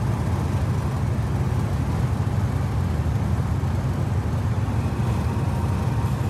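Steady in-cabin drone of a VW Super Beetle with an air-cooled 1600cc engine cruising at highway speed, engine noise mixed with road and wind noise.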